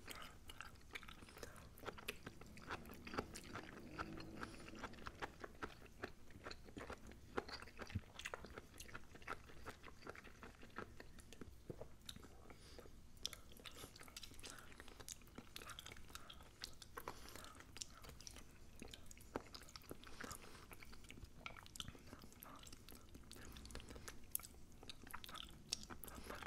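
Soft, close-miked chewing and wet mouth sounds of a person eating self-heating hot pot food with chopsticks, with many small sticky clicks scattered throughout.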